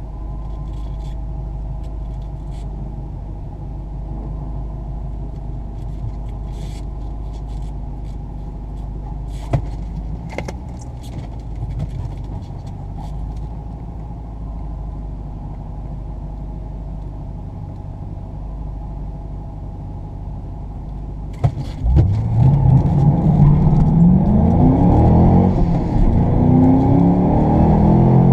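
A car's engine idling with a low rumble. About 21 seconds in, it launches hard and the engine note climbs steeply, dropping back and climbing again through several gear changes as it accelerates away.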